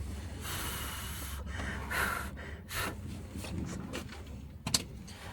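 A person breathing and exhaling close to the microphone, in a few short breathy bursts. There is a sharp click near the end and a steady low hum underneath.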